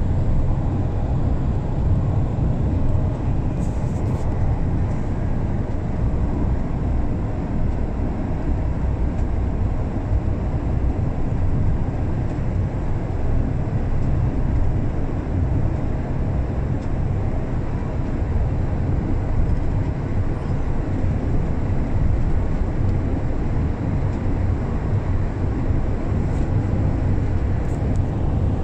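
Steady road and engine rumble heard from inside a car cruising at a constant speed on an open road.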